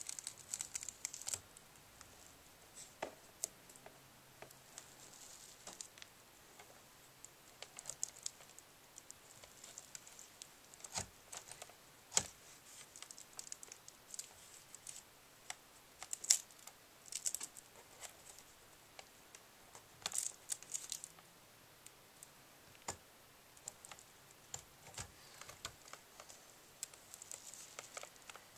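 Faint, irregular clicks, taps and crinkly rustles of a laptop's LCD panel and display lid being handled as the panel is eased away from the lid, with a few sharper ticks along the way.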